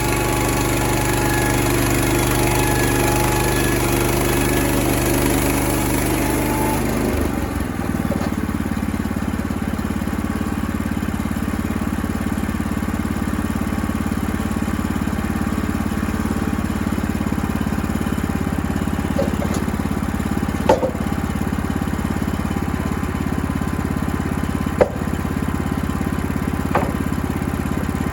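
Engine running steadily. About seven seconds in, its higher-pitched noise drops away and it settles into lower, steady running, with a few sharp knocks later on.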